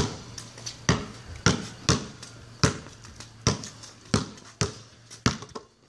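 A basketball dribbled hard on concrete, about ten sharp bounces at an uneven pace: the rhythm of a hesitation into a Shammgod dribble move, with quick bounces between pauses.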